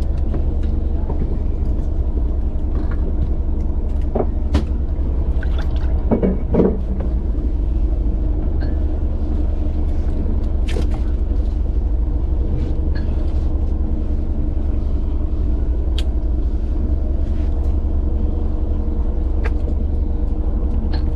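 Fishing boat's engine running steadily, a low drone with a few steady pitched tones over it, and scattered light clicks and knocks, a louder one about six seconds in.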